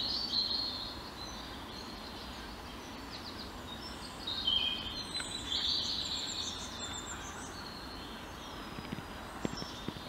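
Several songbirds singing and calling at once, a mix of overlapping chirps, trills and whistles, over a steady low background hiss.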